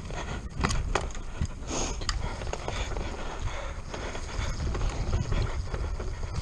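Mountain bike descending a forest dirt trail at speed, heard through a rider-mounted GoPro: a steady wind rumble on the microphone with irregular knocks and rattles from the bike over bumps and roots.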